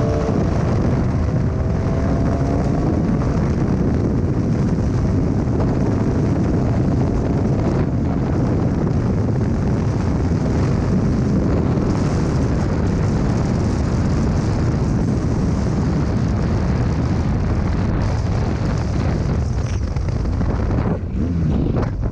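BMW R 1200 GS Adventure's boxer-twin engine pulling hard off the line, its rising note soon drowned by heavy wind buffeting on the microphone at speed. The wind roar turns gustier in the last few seconds.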